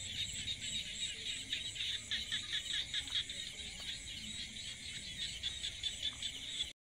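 Chorus of insects, crickets or similar, trilling steadily and densely in a high pulsing band. The sound cuts out abruptly near the end.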